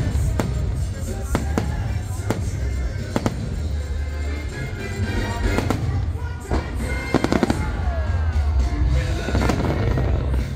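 Fireworks launching and bursting in a string of sharp bangs, with a quick run of cracks about seven seconds in. Underneath runs the show's music from the park loudspeakers, with a heavy low rumble.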